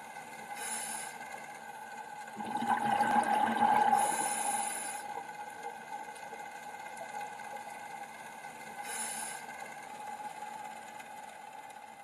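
Ambient soundscape-style background track: a steady drone of held tones with a swell of noise from about two to five seconds in, thinning out toward the end.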